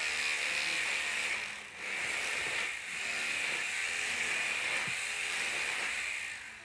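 A steady machine noise with two brief dips, which stops near the end.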